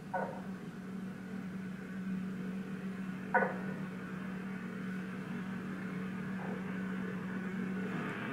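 Audio of a home security camera clip played back through computer speakers: a steady low hum with two short knocks about three seconds apart, the second louder. The hum cuts off near the end as the next clip begins.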